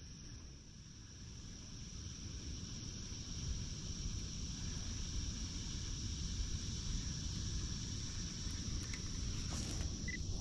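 Steady high-pitched insect chirring over a low rumble that slowly grows louder.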